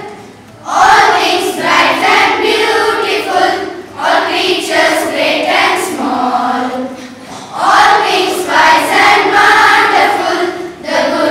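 Choir of schoolchildren singing together, the song breaking off briefly between phrases at the start and again just past the middle.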